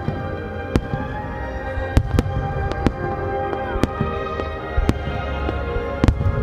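Aerial firework shells bursting in quick, irregular succession: about a dozen sharp bangs, roughly two a second, over steady music with held notes.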